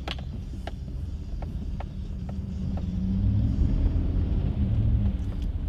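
Lifted pickup truck driving through a shallow creek ford over a concrete crossing and up onto gravel, heard from inside the cab: a steady low engine and tyre rumble that grows louder about halfway through, with scattered light clicks.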